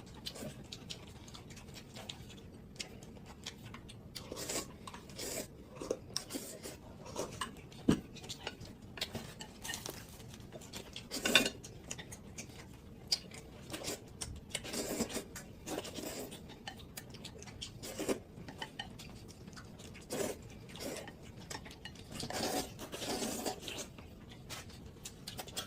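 Eating a meal of noodles at the table: chopsticks and tableware clink against bowls and dishes now and then, with scattered short clicks and brief rustling-to-slurping sounds.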